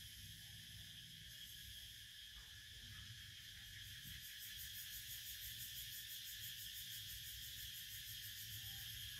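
Insect chorus, a steady high buzz that gets slightly louder about four seconds in.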